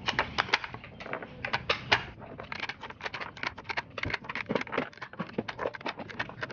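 Irregular light tapping and clicking, several sharp taps a second with no steady rhythm.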